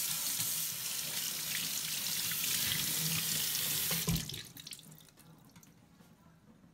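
Kitchen faucet running into a stainless steel sink while a piece of geoduck liver is rinsed under the stream. The water stops about four seconds in, with a knock.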